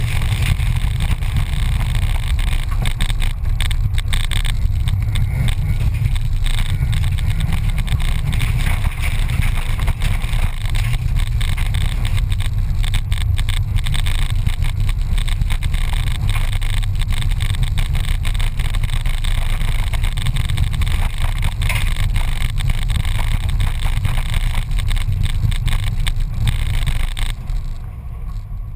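Škoda Felicia rally car driven hard on a gravel course, heard from inside the cabin: the engine running under load with the rumble and rattle of tyres on loose gravel. The noise drops suddenly about a second before the end.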